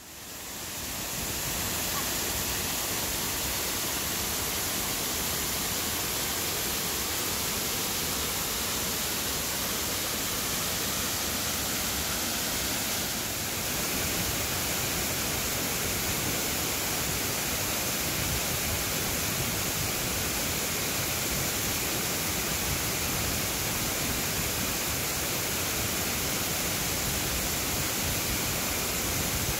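Waterfall pouring and cascading over rocks: a steady, even rush of falling water that fades in at the start and grows slightly louder about halfway through.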